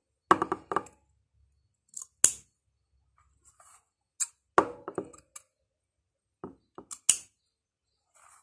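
Small sewing scissors snipping notches into a curved collar seam allowance: a few scattered groups of short, sharp metallic snips and clicks with silent gaps between them.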